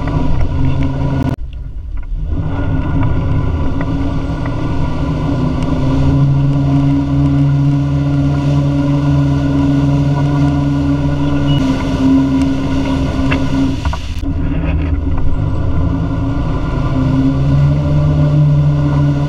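Wake-surf boat's inboard engine running steadily at surfing speed, a constant droning hum over the rush of the boat's wake. The sound breaks off briefly twice, about a second and a half in and again around fourteen seconds.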